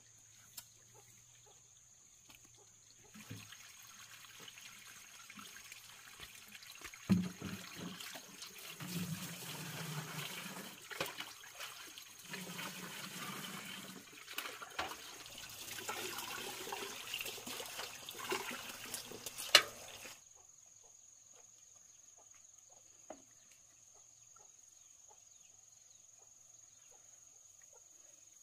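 Water running and splashing, with scattered clicks and knocks, starting a few seconds in and cutting off abruptly about two-thirds of the way through.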